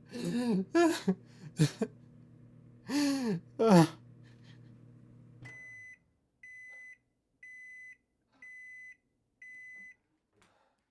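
Microwave oven running with a steady hum while a man's voice breaks out loudly several times. About halfway through the hum stops and the microwave beeps five times, about once a second: the cooking time is up.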